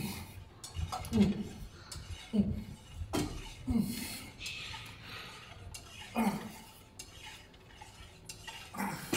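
Steel plates of a selectorized weight-stack machine clinking and knocking against each other on the guide rods with each rep. The knocks come about once every 1.2 seconds at first, then twice more after longer gaps.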